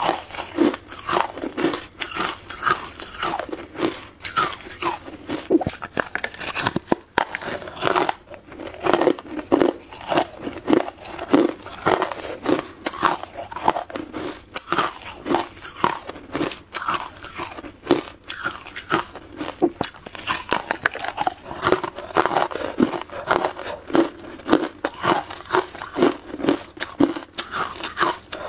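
Carbonated white ice being bitten and chewed close to a clip-on microphone: rapid, crisp crunches of brittle, porous ice, a few a second without a break.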